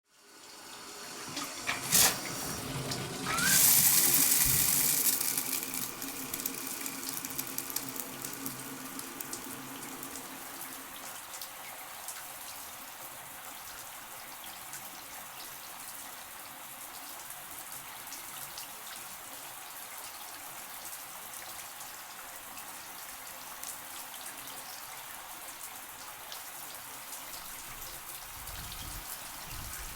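Shower being turned on: a sharp click about two seconds in, then a brief rising squeal and a loud rush of spray about a second later. The spray eases into steady running shower water.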